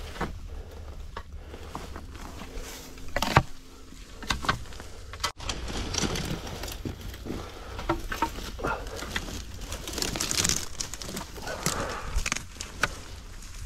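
Irregular footsteps and scuffs on loose, rocky ground while climbing down a steep canyon slope, with the loudest knock about three seconds in.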